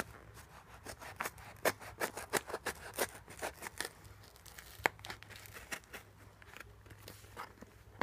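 A pocket knife blade slitting the packing tape and paper wrapping on a small box. The tape and paper crackle in an irregular run of sharp clicks and ticks.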